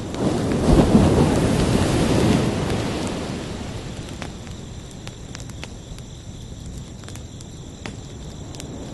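An ocean wave surges in just after the start, peaks about a second in and washes back, fading over the next few seconds. Crickets chirr steadily underneath at a high pitch, with a few faint ticks.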